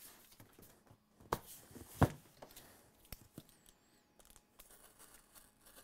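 Packaging being handled and torn while a boxed graphics card is unpacked: rustling and tearing, with a sharp knock about a second in and a louder one about two seconds in.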